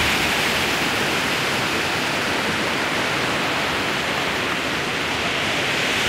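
Steady rushing of an 81-metre waterfall, an even unbroken noise of falling water.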